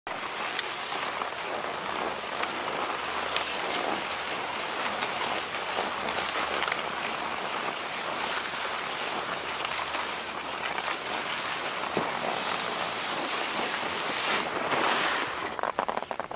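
Skis sliding and scraping over hard-packed snow in a steady hiss, with two louder, brighter scrapes in the last few seconds.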